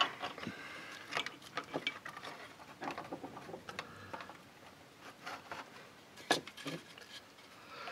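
Faint, scattered clicks and taps of hands handling a plastic lamp housing and crocodile-clip test leads on battery connectors, with one sharper click about six seconds in.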